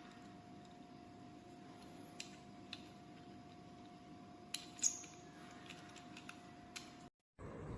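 Faint room tone with a steady hum and a few light clicks, cutting off suddenly near the end.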